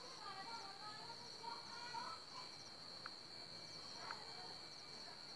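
Faint, steady high-pitched trill of crickets.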